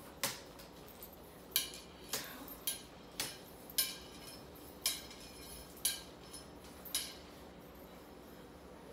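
About nine light, sharp clicks at uneven spacing, half a second to a second apart, thinning out towards the end, against a quiet room.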